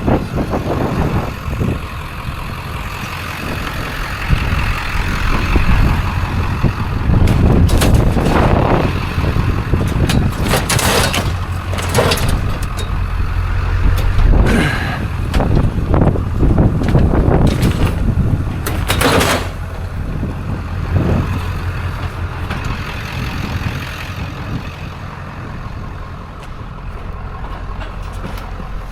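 A truck driving, with a steady low engine and road rumble and scattered knocks, clatters and short squeals, mostly in the middle stretch.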